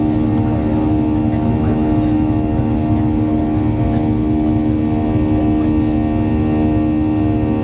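Boeing 737-800's CFM56-7B jet engines heard inside the cabin: a steady drone with a strong, unchanging hum over a low rumble.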